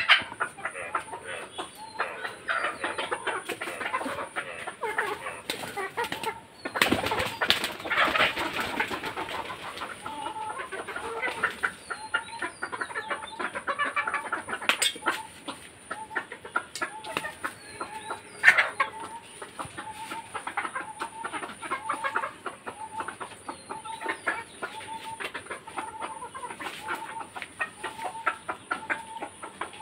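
Free-range hens clucking softly as they forage, with short repeated calls and scratching and pecking sounds. About seven seconds in comes a brief burst of wing flapping. A steady high whine runs underneath.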